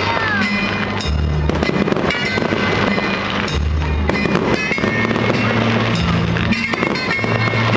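Fireworks bursting and crackling in quick succession over loud accompanying music with held bass notes.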